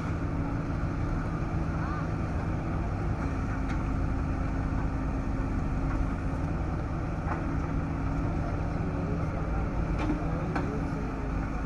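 Diesel engine of a backhoe loader or tractor running steadily at a constant note, with a few light knocks scattered through.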